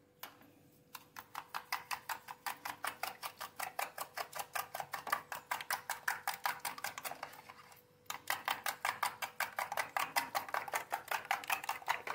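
Metal spoon beating a mixture quickly in a plastic bowl, a fast even tapping of about five or six strokes a second. It stops briefly about two-thirds of the way in, then starts again.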